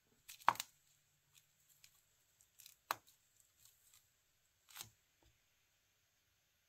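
Faint handling noise: fingers handling the battery lead and circuit board on a foam sheet, giving three short clicks and rustles, the first the loudest, with a few fainter ticks between.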